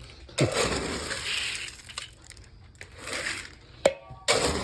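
Feed scoop digging into pelleted livestock feed in a big metal drum and pouring it into a bucket: three spells of rattling, rustling pellets, with one sharp clink near the end.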